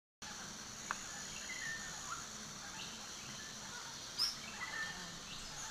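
Tropical forest ambience: a steady high drone, typical of insects, with scattered short bird chirps, one louder chirp about four seconds in.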